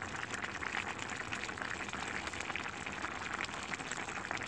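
Pan of tesmo meat with onion, tomato and peppers cooking in its own juices, bubbling steadily with a dense crackle.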